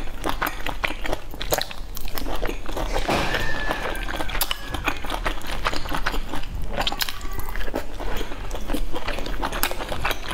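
Close-up eating sounds of boiled dumplings dipped in chili sauce being bitten and chewed: a dense run of quick mouth clicks, with a brief thin whistling tone about three seconds in.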